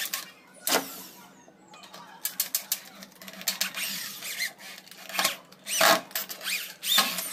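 Corded electric drill boring into the edge of a plywood box, running in short bursts with irregular crackling as the bit cuts into the wood.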